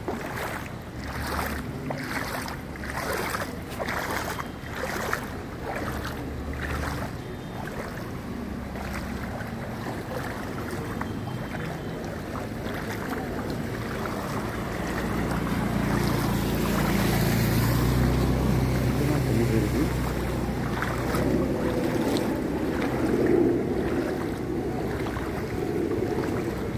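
Wading through rainwater flooding a street: splashes come about twice a second for the first several seconds, then give way to steadier sloshing with a low rumble that grows louder from about halfway through.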